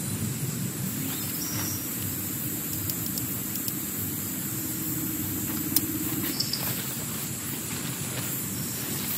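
Heavy rain drumming steadily on a tent, with a few sharper drop taps on the fabric. A faint low hum runs underneath from about a second in until about six and a half seconds in.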